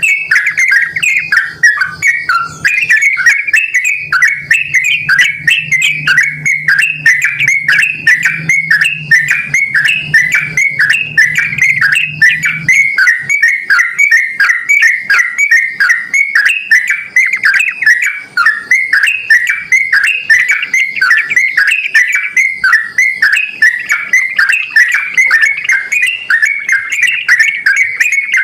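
Yellow-vented bulbul singing continuously: a dense stream of rapid, bubbly whistled notes repeating without pause. A faint low hum underneath stops about halfway through.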